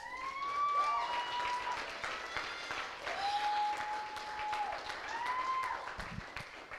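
Congregation applauding and cheering, with several long high-pitched whoops held over the clapping.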